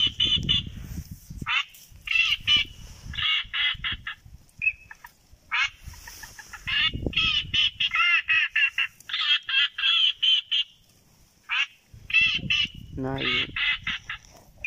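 Ducks calling: repeated short runs of quick, high, nasal quacking notes, burst after burst, with low rumbling underneath at times.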